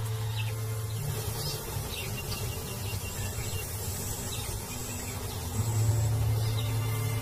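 Insects chirring in short, high, broken trills over a low steady hum.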